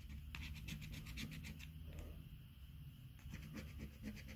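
A coin scratching the latex coating off a Cashword scratchcard in quick back-and-forth strokes: one run early on, a short pause, then a second run starting about three seconds in.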